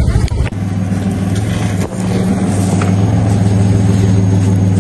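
Nissan Frontier pickup's engine running steadily at low revs as it crawls along a muddy, rutted dirt track. The hum steadies about half a second in.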